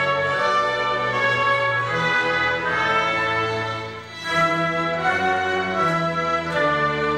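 A youth orchestra of woodwinds, brass and strings plays together in sustained chords. The sound dips briefly about four seconds in before the full ensemble comes back.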